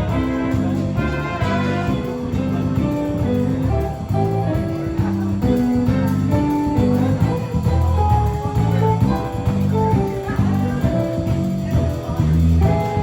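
Background music with a steady bass beat and melodic instrument lines.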